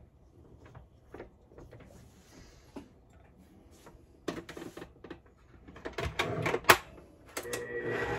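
Clinks and knocks of a stainless steel mixing bowl being handled and set in place, then an electric mixer's motor starts about seven seconds in and runs steadily, mixing pie dough.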